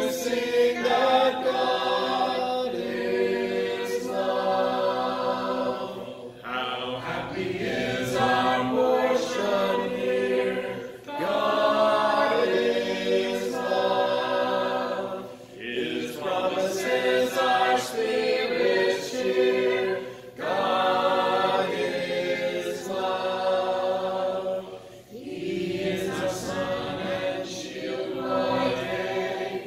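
Church congregation singing a hymn a cappella, many voices together without instruments, in sung phrases broken by short breaths about every four to five seconds.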